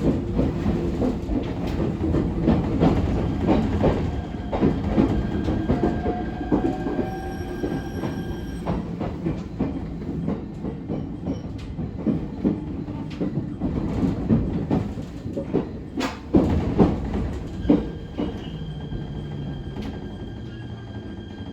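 ET127 series electric multiple unit running along the line: a steady rumble with wheels knocking over rail joints and squealing on curves. Thin steady high tones from its Toyo IGBT traction inverter come in twice, and the running noise dies down near the end.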